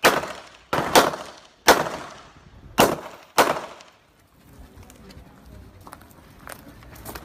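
Handgun shots fired in a run: about six sharp reports in the first three and a half seconds, two of them in a quick double tap, each with a short echoing tail. After that come only faint small clicks and handling noise.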